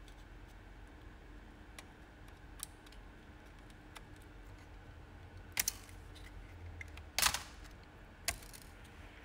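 Small scattered clicks and ticks of a plastic pry tool working ribbon-cable connectors and latches loose on an IBM ThinkPad 701C laptop's motherboard, with a few louder sharp snaps in the second half.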